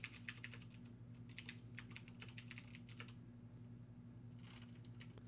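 Faint typing on a computer keyboard: a quick run of keystrokes for about three seconds, a pause, then a few more keystrokes near the end, over a low steady hum.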